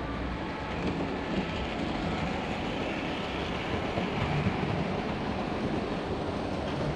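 Model railway train, a red locomotive hauling red-and-cream coaches, running along the track of the layout past the microphone, its sound a steady rolling rush that grows a little louder in the middle as it passes closest.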